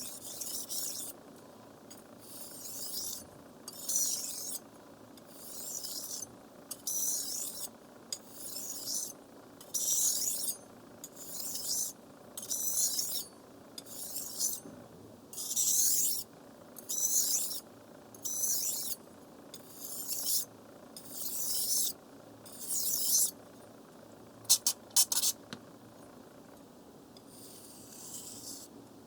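Knife blade drawn back and forth across a wet water whetstone in steady hissing strokes, about one a second. The strokes stop near the end, followed by a few sharp clicks.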